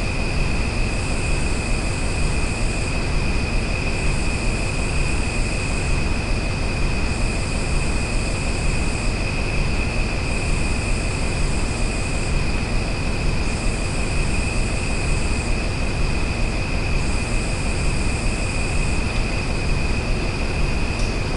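Outdoor nature ambience: a constant low rumble with a steady high-pitched hum above it, and a still higher buzz that swells in for about two seconds roughly every three seconds.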